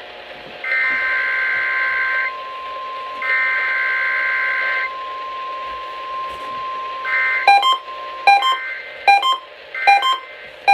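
Emergency Alert System SAME header: two bursts of its warbling two-tone digital data, each about a second and a half, with a steady single tone starting under the second burst and holding on. From about seven and a half seconds in, a run of short repeated beeps, under two a second, sets in, with more data bursts among them.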